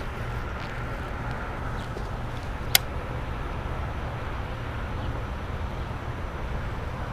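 Steady low outdoor rumble on the microphone, with one sharp click about three seconds in from the baitcasting reel being worked just after a cast.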